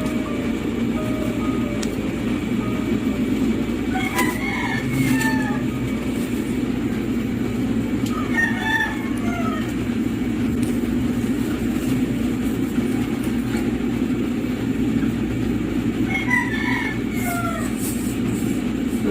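Chicken calls, in three short bursts about four, eight and sixteen seconds in, over a steady low rumble.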